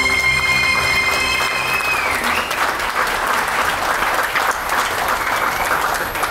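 A woman's long held whistled note over backing music, ending with a short upward flick about two seconds in, then an audience clapping and applauding.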